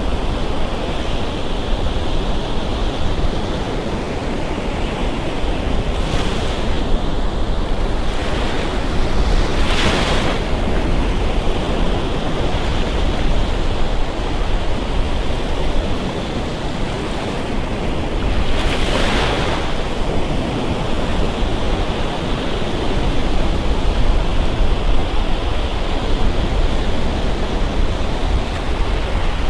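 Surf: waves breaking and washing up a beach in a steady rush, with two louder surges about ten and nineteen seconds in. Wind rumbles on the microphone underneath.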